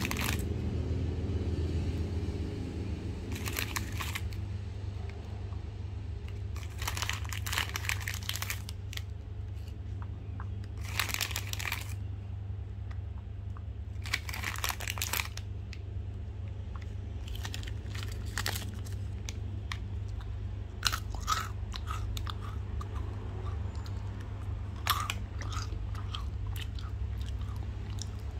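Chocolate candy being crunched in bursts of up to a second every few seconds, turning to shorter crackles in the second half, over a steady low hum.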